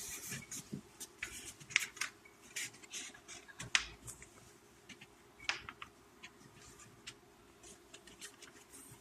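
A sheet of paper being handled and folded into a paper airplane: irregular crackles and rustles, with a few sharper crinkles, the loudest about two seconds and four seconds in.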